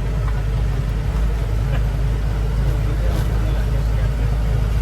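Steady low engine rumble with broad travel noise, heard from inside a moving vehicle.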